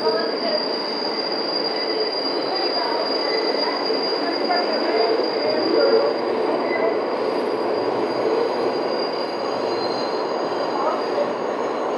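A New York City subway train running at speed, heard from inside the car near the end door: a dense steady rumble of wheels on rail, with a steady high-pitched wheel squeal that fades out near the end.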